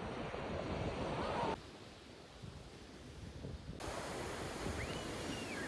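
Ocean surf washing onto a beach, with wind noise on the microphone. The sound drops abruptly to a quieter stretch about a second and a half in and comes back just before four seconds.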